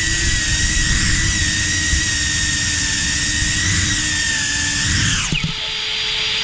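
Cinewhoop FPV drone's small brushless motors and ducted propellers whining steadily in flight. Just after five seconds the pitch drops sharply as the throttle is cut on landing, and it settles into a lower steady hum.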